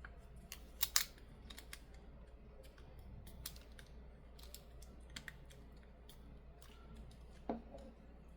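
Scattered small clicks and taps from handling a smartphone during a screen repair, the sharpest about a second in, with a duller knock near the end.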